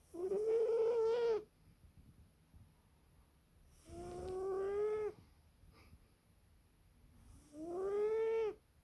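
British cat snoring in its sleep: three drawn-out pitched snores, one about every four seconds, each lasting a second or so and rising slightly in pitch.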